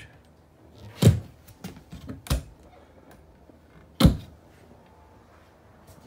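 Travel trailer storage cabinet doors being opened and shut: three loud thunks, with a few lighter clicks between them.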